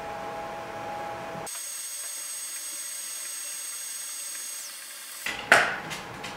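A steady mechanical hum with a few fixed high tones, changing abruptly twice. Near the end come a sharp double knock and a click as hard 3D-printed plastic rocket tube parts are handled and bumped together.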